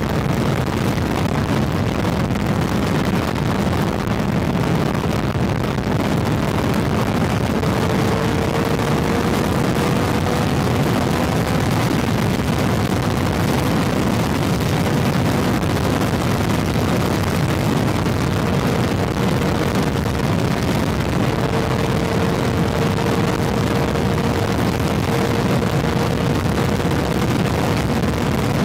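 Honda CB400 motorcycle engine running steadily at highway cruising speed, mixed with the rush of wind and road noise. A faint steady whine joins in about eight seconds in.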